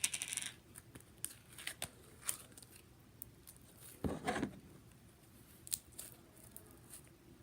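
A small plastic slime container and the slime in it being handled: scattered light clicks and crinkles, with a louder rustle about four seconds in.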